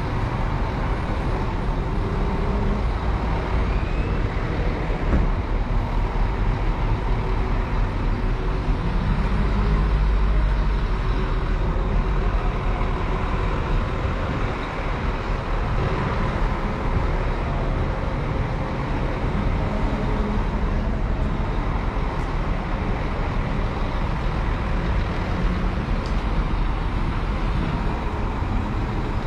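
Street traffic dominated by the low, steady running of large bus engines, swelling louder about ten seconds in.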